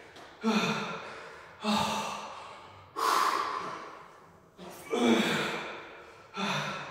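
A man breathing out hard through effort, about five heavy, partly voiced exhales, one roughly every second and a quarter, each with a rep of lifting a pair of dumbbells from the floor to overhead.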